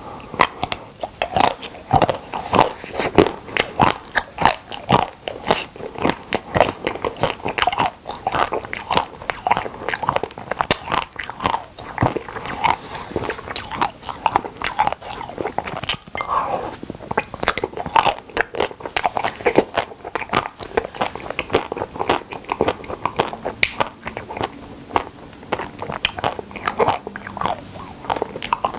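Close-miked crunching bites and chewing of an Okdongja milk caramel ice cream bar: many quick, irregular crunches.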